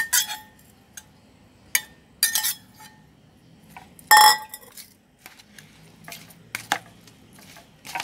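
Metal spoon clinking, tapping and scraping against bowls as pounded chilli-herb paste is mixed into small fish. One loud ringing clink comes about four seconds in, among scattered lighter knocks.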